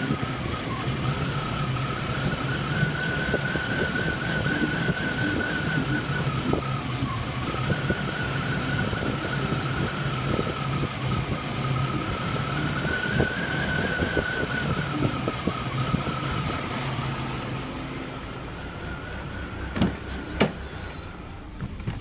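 1995 BMW 318ti's M42 1.8-litre four-cylinder engine idling roughly, with a high whine that slowly rises and falls in pitch and irregular ticks. Near the end it gets quieter and there are two sharp clicks.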